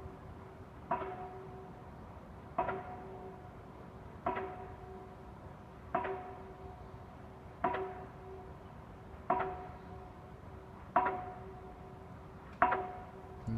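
Repeated metallic clanging from an unseen machine, heard as a strange mechanical sound: eight strikes at an even pace, about one every 1.7 seconds. Each strike rings briefly on the same few tones.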